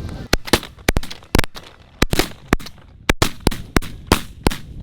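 A volley of about a dozen shotgun shots in quick, irregular succession from several hunters firing at incoming geese, with wind noise between the blasts.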